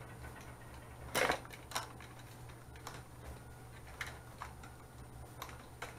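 Speaker wires and plastic packaging being handled: scattered light clicks and rustles, the loudest a little over a second in, over a steady low hum.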